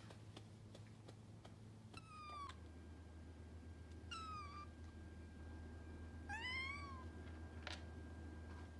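Kitten meowing three times, short high-pitched mews about two seconds apart; the first two fall in pitch, the last rises and then falls.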